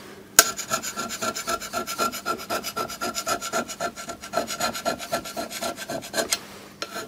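Hand scraper cutting the surface of an aluminium plate in rapid short strokes, a scratchy rasping, with a sharp click about half a second in.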